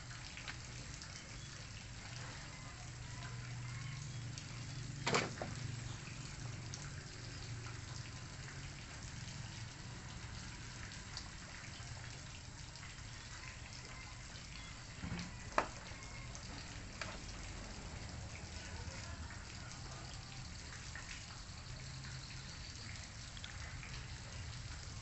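Steady background hiss over a low hum, broken by two sharp clicks, one about five seconds in and one about fifteen seconds in.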